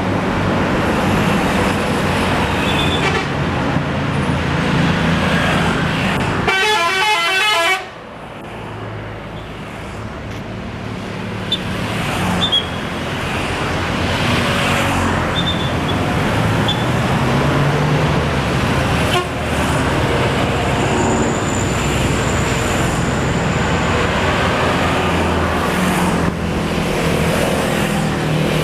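Tour bus engines running in traffic, with a short burst of a 'telolet' multi-tone bus horn about seven seconds in, playing rapidly alternating notes.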